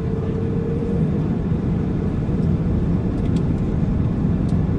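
Airbus A380's engines running with a steady low rumble. A steady whine fades out about a second in.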